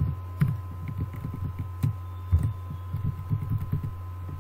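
Computer keyboard typing: a run of irregular, soft key thumps and clicks, over a steady low electrical hum with a faint high steady tone.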